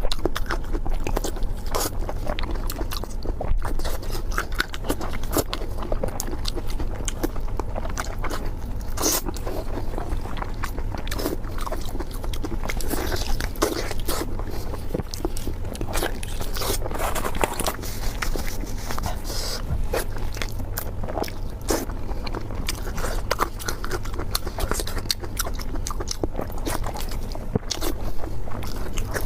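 Close-miked eating sounds: biting and chewing food, with many small clicks, crunches and scrapes over a steady low hum.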